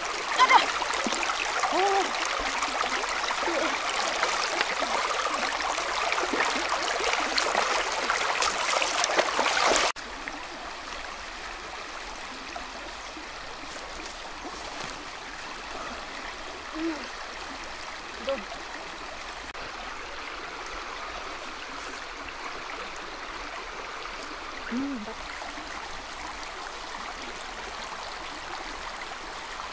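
Shallow river rushing over rocks, loud and close for the first ten seconds, then cutting suddenly to a quieter, steady flow. A short louder sound stands out about half a second in.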